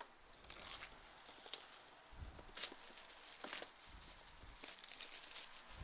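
Plastic shrink-wrap being peeled and torn off a cardboard retail box: faint, irregular crinkling and tearing, with a few sharper crackles in the middle.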